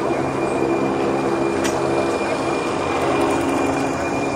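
RhB Capricorn electric multiple units of a very long metre-gauge train rolling slowly past at close range: a steady rumble of the cars with steady humming tones from the running train, and a sharp click about a second and a half in.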